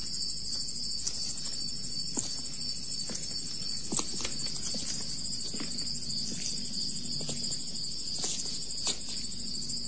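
Steady high-pitched insect chirping, with a few faint clicks scattered through it.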